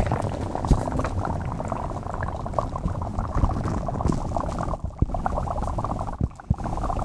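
Dry ice bubbling and crackling against heated liquid, a dense steady fizz broken by a few sharp clicks.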